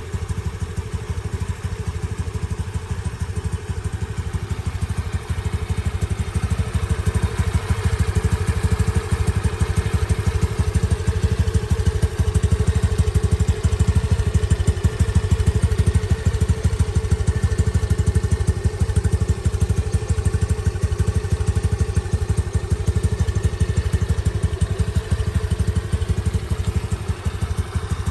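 Honda Navi's small single-cylinder engine idling through its exhaust, a steady rapid low pulse that picks up a little in the middle and then settles back.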